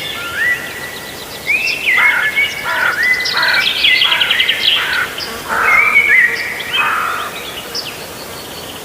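Several birds singing at once: overlapping whistled notes that rise and fall, fast trills and short down-slurred calls.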